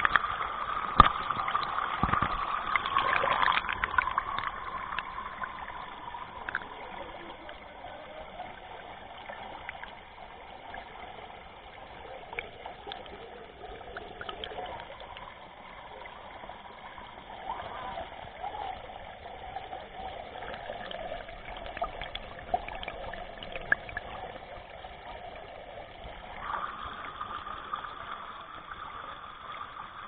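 Water trickling and flowing steadily, with a few sharp knocks in the first few seconds.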